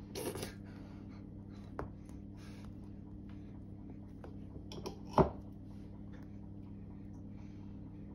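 A metal spoon scraping and spreading jam on a slice of bread in soft, scratchy strokes, with a sharp tap about five seconds in. A steady low hum runs underneath.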